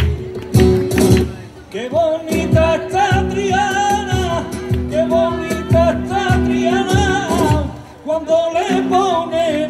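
Live song: a singer's voice with vibrato over a rhythmic instrumental accompaniment. The voice comes in about two seconds in and pauses briefly near the end.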